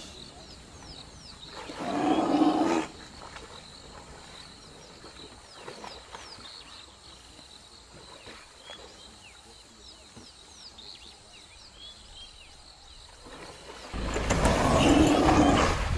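Lions growling: a short growl about two seconds in and a longer one near the end, the second joined by a low rumble. Faint chirps of birds or insects in between.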